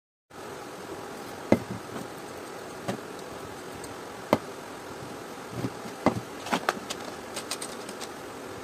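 Steam iron parts, the metal soleplate and its steam-mechanism pieces, being handled and set down: about half a dozen sharp knocks and clicks and a few small ticks near the end, over a steady background hum.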